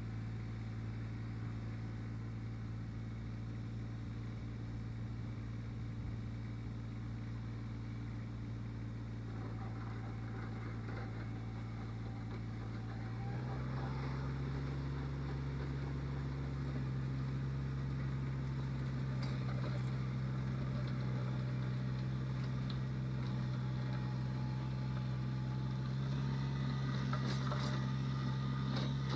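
Kubota BX2360 compact tractor's three-cylinder diesel engine running steadily; about halfway through its pitch steps up and it gets louder.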